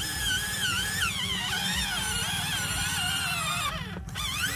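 Electric gear motors of a radio-controlled toy excavator whining as its boom and bucket move, the pitch wavering up and down with the load, over a steady low gearbox rumble. The whine stops briefly near the end, then rises again as a motor starts up.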